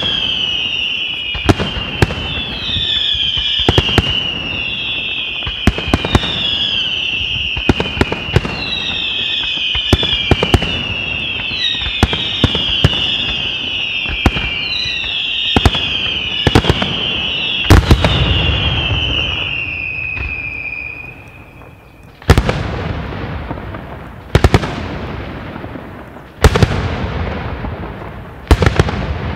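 Daytime fireworks display by La Tirrena Fireworks: a shrill screeching whistle in repeated falling chirps runs over a rapid string of sharp bangs. About three-quarters of the way through the whistling stops, and single heavy bangs follow roughly every two seconds.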